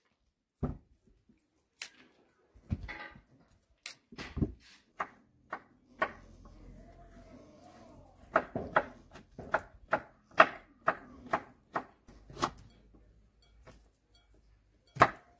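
Kitchen knife chopping cauliflower stalks and leaves on a cutting board: sharp knocks of the blade against the board, scattered at first, then a quicker run of chops past the middle.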